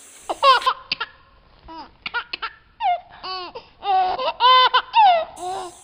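High-pitched laughter in short giggling bursts, a laugh sound effect edited over the field audio.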